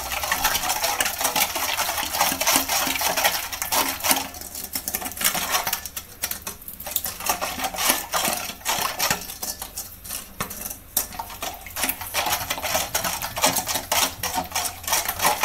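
Silicone whisk beating a thin water-and-oil mixture in a stainless steel bowl: fast ticking and scraping against the bowl with liquid sloshing, easing off briefly a couple of times.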